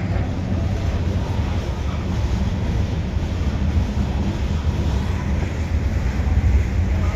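Freight train's covered hopper cars rolling past, a steady low rumble of steel wheels on the rails.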